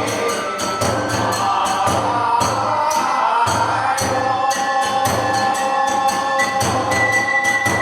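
Kagura music: a drum and jingling hand cymbals beat a fast, steady rhythm of about four strokes a second, under a melody of long held high notes.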